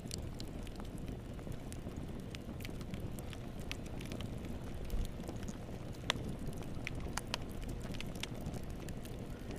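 Wood fire burning in a fireplace: a steady low rumble of flames with frequent sharp, irregular crackles and pops, a few louder pops about five and six seconds in.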